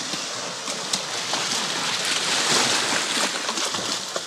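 Sea swell washing and surging over shoreline rocks, a steady rush of water that swells a little toward the middle.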